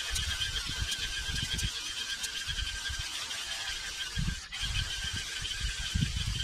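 Wind gusting on the microphone in irregular low rumbles, over a steady high-pitched drone.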